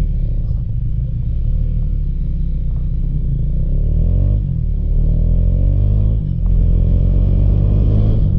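Motorcycle engine accelerating hard through the gears, its pitch rising. It drops at two upshifts, about four and six seconds in, then holds steady at speed. Low wind rumble runs underneath.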